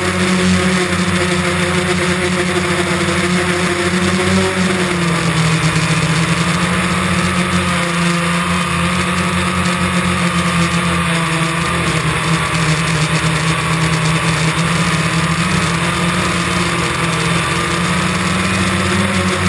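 DJI Phantom quadcopter's motors and propellers whirring steadily under a hiss of noise. The pitch drops about five seconds in and shifts again near the end as the motors change speed.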